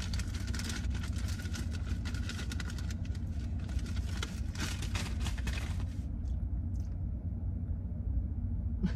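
Steady low rumble of an idling car heard inside the cabin, with crackly rustling of paper or plastic for about the first six seconds.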